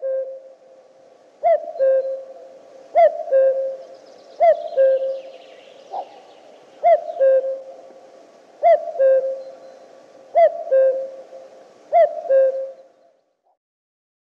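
Male common cuckoo giving its two-note 'cuck-oo' song, a higher note dropping to a lower one, repeated about every one and a half seconds, eight or nine times, and stopping near the end.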